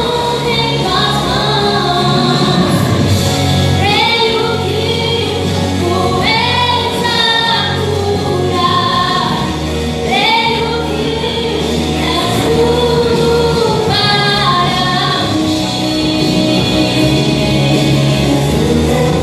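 A woman singing a Portuguese-language gospel worship song over instrumental accompaniment with a steady low bass.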